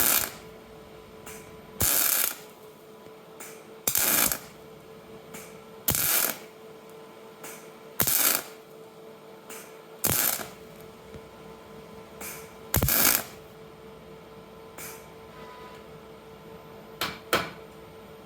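Wire-feed (MIG) welder laying short weld bursts about every two seconds, each crackling for under half a second, to build up worn gear teeth. A steady hum runs underneath.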